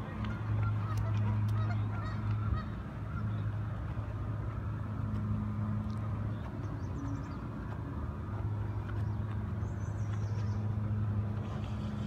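Canada geese honking, a few short calls in the first couple of seconds, over a steady low hum.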